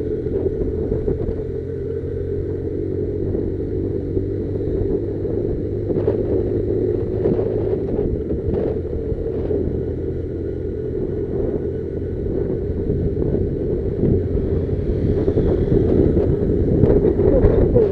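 Motorcycle engine running steadily while riding, with a few knocks partway through.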